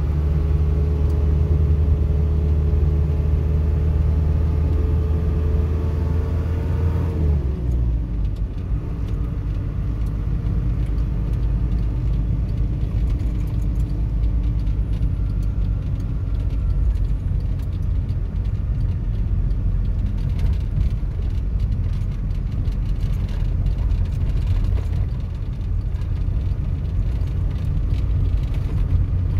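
Car engine and tyre noise heard from inside the cabin while driving. The engine note holds steady, then drops away about seven seconds in, leaving an even road rumble.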